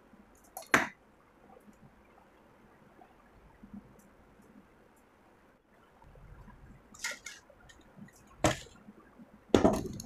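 Handling noise on a wooden workbench: a few sharp clicks and knocks as small tools and cut plastic parts are picked up and set down. The first comes about a second in, a short cluster follows about seven seconds in, and the loudest knock comes near the end.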